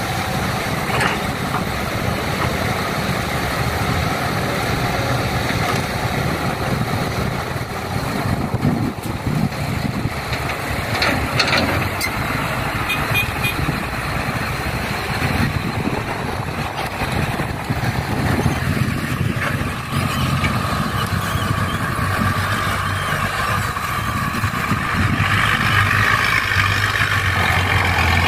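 Heavy diesel engines of an excavator and dump trucks running, with a few sharp clanks about eleven seconds in. Near the end, the engine note grows steadier and a little louder.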